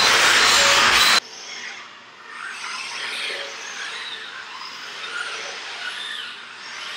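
A loud rushing noise with short high squeals cuts off abruptly about a second in. After it come faint, intermittent high whirs and whines from the joint motors of a Baxter robot's arms as they swing.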